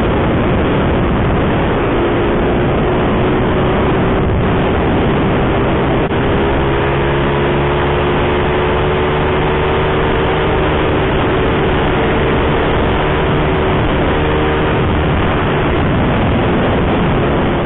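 Wind rushing over the microphone of a riding mini bike, with the small four-stroke single-cylinder engine of a vintage Honda mini bike running steadily under it at a constant cruising speed.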